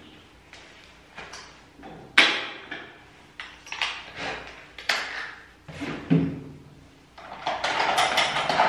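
Grooming tools being handled on the table: a series of separate knocks and clicks, the loudest about two seconds in, then a longer rattle near the end as tools are rummaged in the tool caddy.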